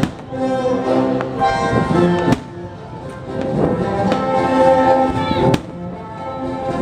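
Orchestral music with sustained brass chords, broken by two sharp cracks about two and a half and five and a half seconds in.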